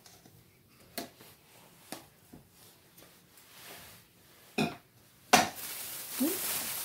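A few light clicks and knocks as items are handled, then about five seconds in a sharp clatter followed by steady crinkling of a plastic shopping bag being rummaged through.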